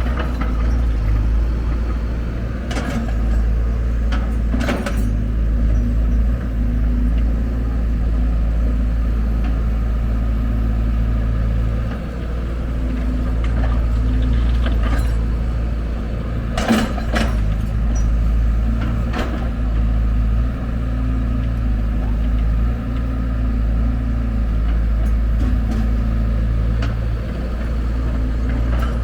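Heavy diesel engine of construction machinery running steadily, with a few sharp metallic knocks, the loudest about halfway through.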